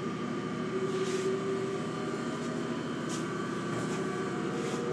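The 7.5 horsepower motor of a 1944 Sidney 16-inch lathe, fed by a homemade 5-horsepower phase converter, humming steadily as it comes up to speed on an extra slow start.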